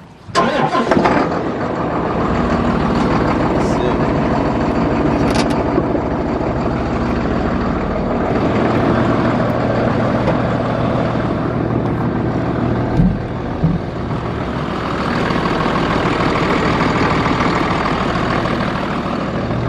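A Hino 268 box truck's six-cylinder diesel engine idling steadily, with two short thumps about two-thirds of the way through.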